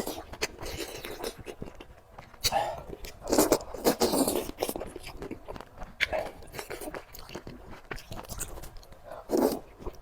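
A person chewing and biting food close to the microphone: a run of small wet clicks and crunches with a few brief louder mouthfuls.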